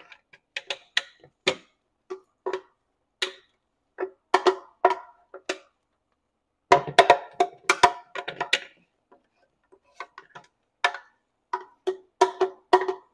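Irregular hollow knocks of a spatula against a plastic blender jar as the jar is tapped and scraped out over a frying pan to empty blended vegetables, some single and some in quick clusters, busiest a little past the middle.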